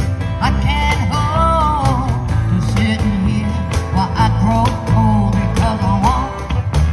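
Live band playing an upbeat rock-and-roll number with guitars and bass under a steady beat, while a lead line bends and glides above.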